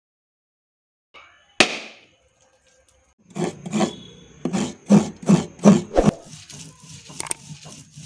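A single sharp knock, then a steady run of rubbing strokes, about three a second, as grated coconut is ground by hand on a traditional grinding stone.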